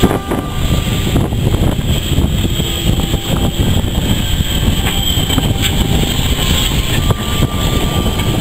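Steam tank engine running slowly past at close range: a continuous heavy low rumble with a few sharp metallic clanks, overlaid by wind buffeting the microphone.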